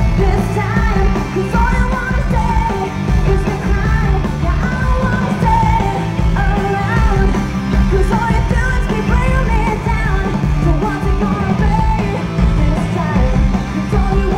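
Live rock band playing loudly, with electric guitars, bass and drums, heard from the crowd.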